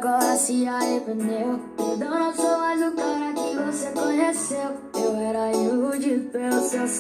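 A pop song with guitar and singing played through a small homemade Bluetooth speaker with two 3 W drivers. The sound is thin, with no bass at all.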